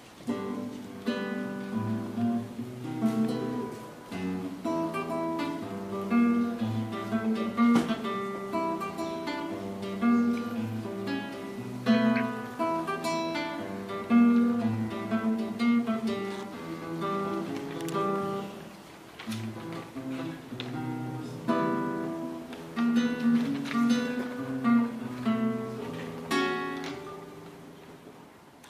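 Classical nylon-string guitar played solo, fingerpicked, a continuous run of plucked notes; near the end the last notes ring out and fade away as the piece finishes.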